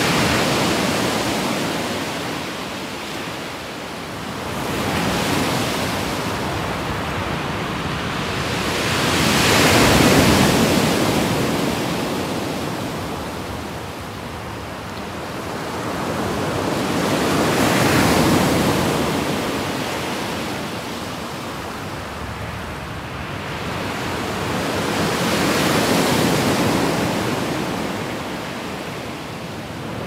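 Small waves breaking and washing up a pebble beach. The sound swells and fades in slow surges, the biggest about every eight seconds.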